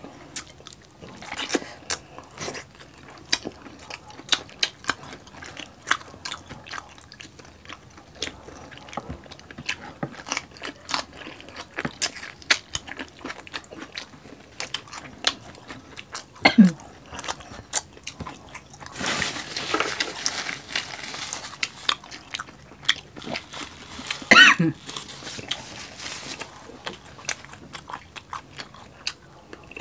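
Close-miked eating: crispy pork belly skin being bitten and chewed, with many short, sharp crunches. Two brief louder pitched sounds stand out, one a little past halfway and one later.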